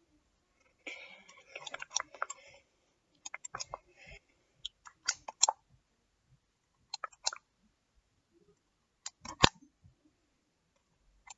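Scissors snipping close to the microphone in short, irregular clicks, with a stretch of rustling about a second in. The loudest snip comes near the end.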